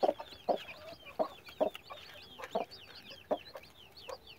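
Broody hen clucking softly in short, low, irregular notes, while her newly hatched chicks peep continuously in quick, high, falling cheeps.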